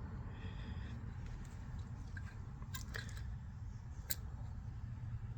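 Small clicks and crinkly handling noises from a VHS cassette and its loose magnetic tape being worked by hand, a few sharp clicks about three and four seconds in, over a low steady hum.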